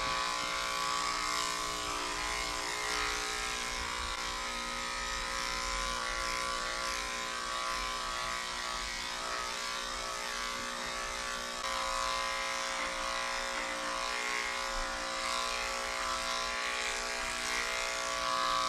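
Corded electric dog clipper with a number 5 blade running with a steady buzz as it shaves down a long, curly coat.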